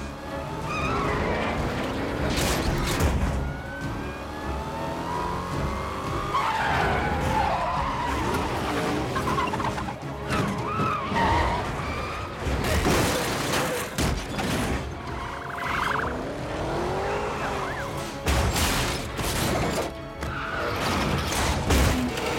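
Car-chase sound effects: car engines revving, tyres squealing in sliding pitches, and several heavy metal crashes, layered over a film score.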